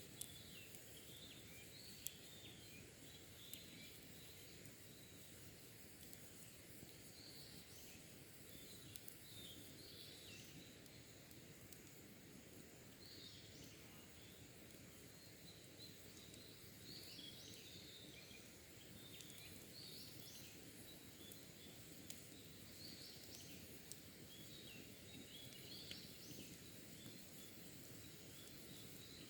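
Faint wild birdsong: short chirping phrases repeated on and off, with a few sharp crackles from campfire embers.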